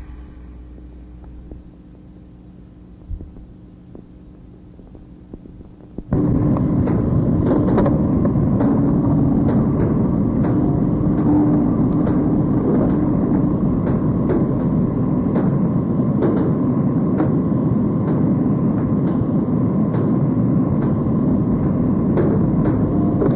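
Harsh noise music: a low hum with a few scattered clicks, then about six seconds in a loud, dense distorted rumble cuts in abruptly and holds, with a steady low drone and constant crackle.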